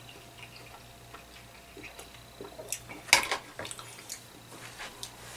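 Faint clicks of chewing and handling, then a sharp clatter about three seconds in as a metal fork is set down against a plastic food container.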